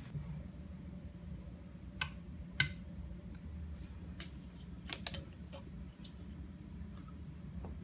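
Two sharp clicks about half a second apart, then a few fainter clicks and taps, over a low steady hum of a quiet room.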